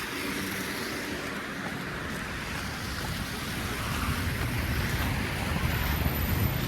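Downtown street traffic: a steady hiss of tyres on a wet, snowy road, with a low engine rumble that grows louder in the second half as a vehicle passes.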